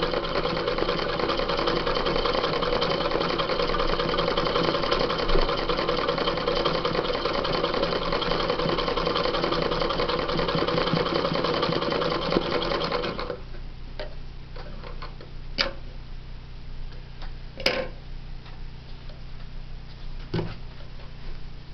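Domestic sewing machine running steadily at speed, stitching free-motion embroidery through denim stretched in a hoop; it stops about two-thirds of the way through, after which three sharp clicks are heard.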